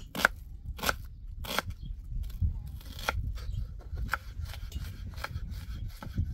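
Kitchen knife chopping an onion on a wooden cutting board: a series of crisp knocks, spaced out at first and coming quicker after about two seconds.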